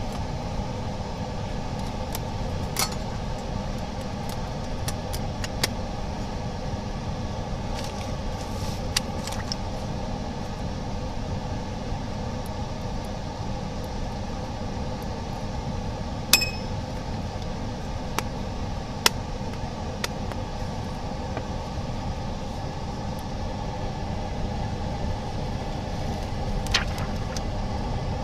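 Steady low machine hum with scattered small clicks and taps of glass and small parts being set down and handled on the work surface. The sharpest click is about halfway through.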